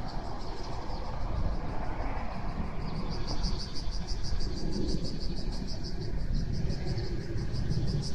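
Cicadas buzzing in a steady, fast-pulsing high chorus that grows louder about three seconds in, over a low rumble of road traffic.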